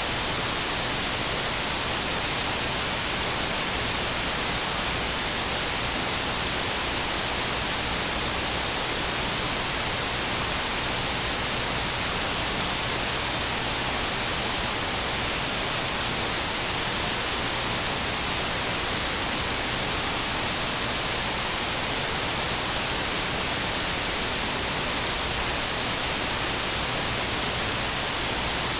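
Steady, loud static hiss, even and unchanging, strongest in the high frequencies, with no voice or music over it.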